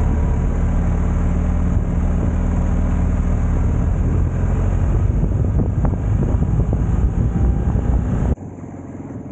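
Motorcycle engine running steadily while riding, with heavy wind and ride noise over it. The sound cuts off suddenly about a second before the end, leaving a much quieter hiss.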